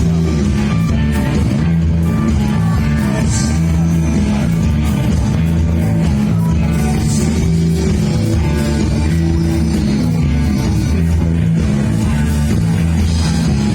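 Live rock band playing loudly, with electric guitar over bass and drums.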